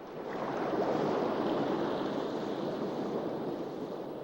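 Water rushing like surf washing over a reef, a steady noisy wash that swells up within the first second and then holds.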